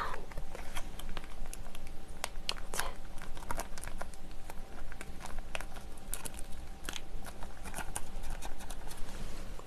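Plastic instant-noodle sauce sachet crinkling, with scattered sharp crackles, as it is opened and squeezed empty into a paper noodle cup.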